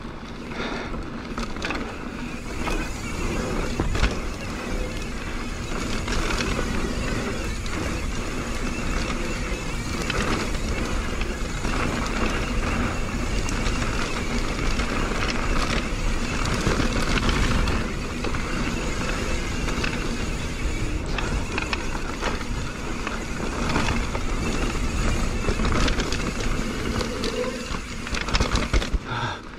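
Mountain bike riding fast down a dirt trail: a steady rush of wind and tyre noise, with frequent knocks and rattles from the bike over bumps.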